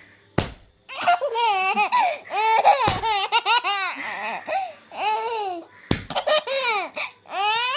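A baby laughing, one high-pitched peal after another, with three short thumps in between.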